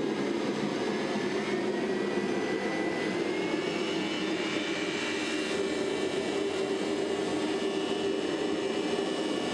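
Air blower forcing air into a foundry melting furnace, running with a steady rushing noise and a thin whine that climbs slightly in pitch in the first few seconds.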